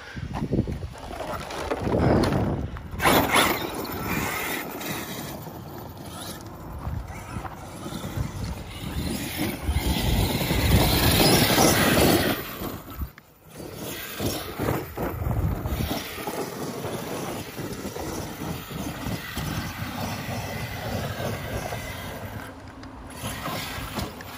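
Arrma Kraton 8S RC monster truck with a brushless electric motor being driven hard over dirt, its motor and tyres running in louder surges about two seconds in and again for a few seconds in the middle.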